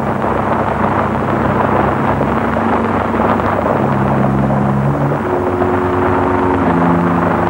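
Film score of low held orchestral chords that change every second or two, over a dense, steady rumble of a troop of horses galloping.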